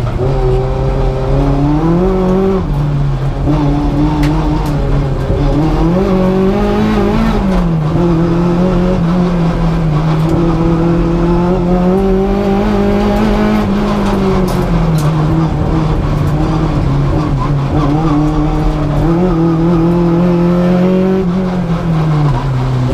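Race-prepared Suzuki G13B 1.3-litre four-cylinder with individual throttle bodies and a 4-1 exhaust manifold, running hard under load, heard from inside the stripped cabin. The revs climb and drop again several times as the car is driven.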